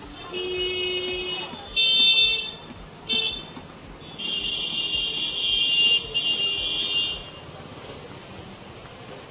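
Vehicle horns sounding in four blasts over steady street noise: one of about a second at the start, a shorter one about two seconds in, a brief toot near three seconds, then a long blast of about three seconds.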